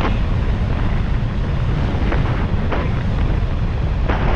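Loud wind buffeting the camera microphone as an e-bike speeds downhill at about 45 mph, a steady rushing roar heaviest in the low end.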